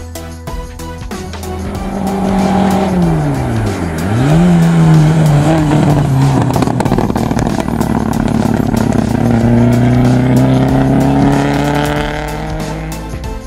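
Small hatchback hillclimb car's engine passing close: the revs fall steeply as it slows for a bend about four seconds in, jump back up, then climb slowly and steadily as it accelerates away up the hill.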